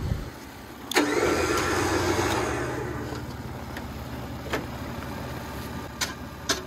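A 12,000 lb electric winch on a 3rd-gen 4Runner's front bumper starts suddenly about a second in and runs for about two seconds before fading away, over the truck's 3.4 L V6 idling. A few sharp clinks of cable and hook come near the end.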